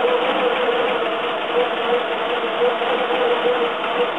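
Citroën GS 1220's air-cooled flat-four engine idling steadily at an even speed.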